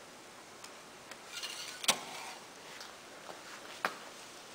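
Faint clicks and ticks of small plastic helicopter parts being handled on a tabletop, with two sharper clicks about two seconds apart.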